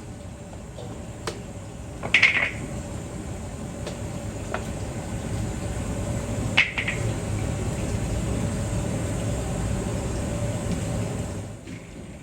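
Metal cookware clinking, two sharp ringing strikes about two seconds and six and a half seconds in among a few lighter clicks, over a steady low rumble that builds slowly and stops shortly before the end.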